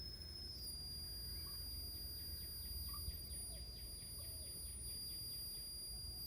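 Air-conditioning unit making a rapid run of faint chirps, about five a second, for a few seconds over a steady low hum: the strange noise the owner says an AC shouldn't make when it stops.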